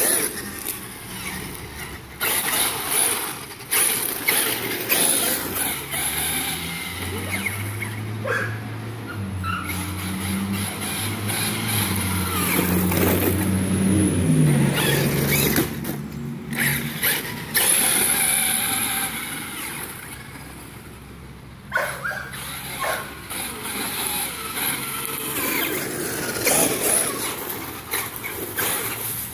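Electric Traxxas X-Maxx 8S RC monster truck driving on concrete, its brushless motor whining and tyres hissing and scrabbling in repeated surges of acceleration, quieter for a moment around two-thirds of the way through.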